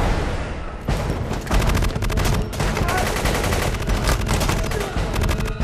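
Automatic gunfire: long bursts of rapid shots in quick succession, beginning about a second in and breaking off shortly before the end.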